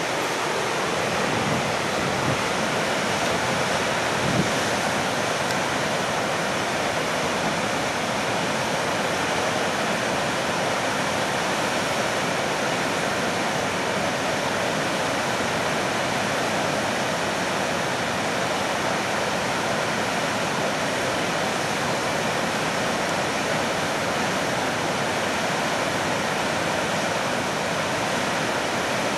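Wide river waterfall and rapids, white water rushing over a rock ledge in a steady, unbroken noise.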